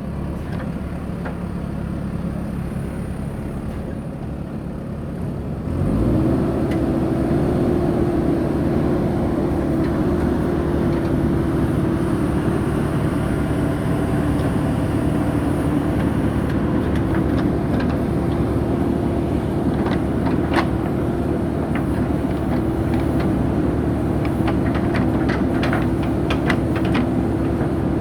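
JCB 3DX backhoe loader's diesel engine running, stepping up sharply to higher revs about six seconds in and then holding steady with a constant tone over it. Scattered short clicks and knocks come in the second half.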